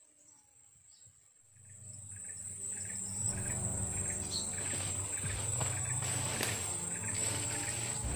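Steady high-pitched drone of insects, crickets or cicadas, with a low steady hum beneath it; both grow clearly louder about a second and a half in.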